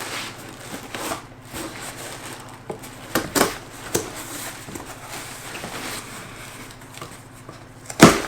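Rustling, scraping and small clicks of a box and its packaging being handled and opened. A sharp knock comes near the end and is the loudest sound.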